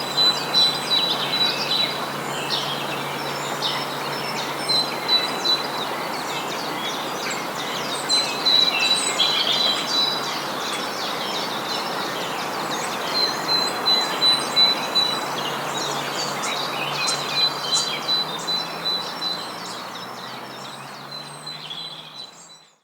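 Birdsong: many small birds chirping and twittering over a steady background rush, with a thin high whistle-like tone that comes and goes and a faint low hum underneath. It all fades out over the last few seconds.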